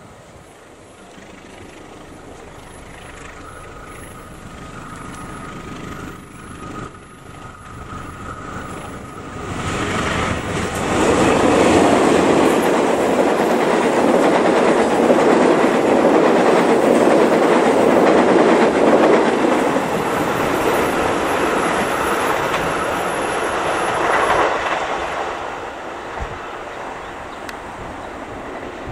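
Diesel locomotive-hauled passenger train approaching, passing close by and moving away: the sound builds slowly, then a long loud stretch of the locomotive and carriages running over the rails, fading as the last carriage goes by.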